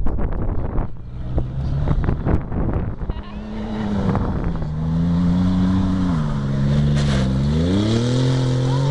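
Wind buffeting the microphone, then the twin-turbo engine of a 1995 Nissan Pathfinder revving under load as it climbs a sand dune. The engine pitch climbs, drops back around six seconds in, then climbs again near the end.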